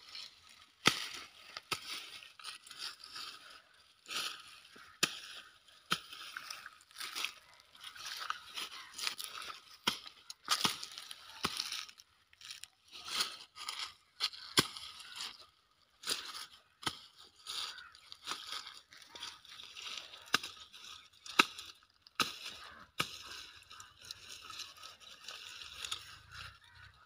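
Woody cotton stalks being chopped with a short-handled hand tool: sharp chops at irregular intervals, roughly one a second, with rustling of dry stems and leaves around each one.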